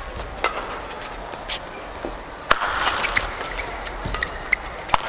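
Badminton rally: sharp racket hits on the shuttlecock every second or two, the loudest about halfway and near the end, with shoes squeaking briefly on the court floor. A murmur from the arena crowd rises after the hard hit about halfway.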